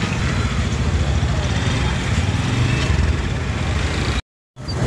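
Steady low rumble of road traffic, vehicle engines running in a jam. The sound cuts out completely for a moment near the end.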